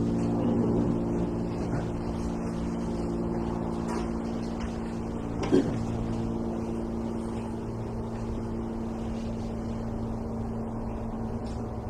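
Steady low mechanical hum with several steady tones, and one brief knock about five and a half seconds in.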